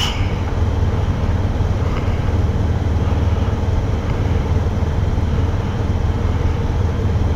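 Motorcycle engines idling with a steady low rumble, no revving.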